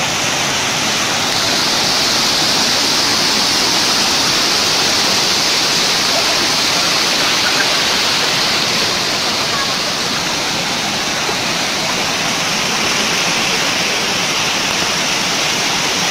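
Water of a waterfall cascading over shallow rock steps: a loud, steady rushing noise.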